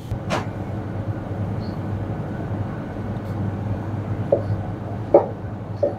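Chef's knife slicing a tomato on a plastic cutting board: one sharp knock just after the start and three short knocks in the last two seconds as the blade meets the board, over a steady low hum.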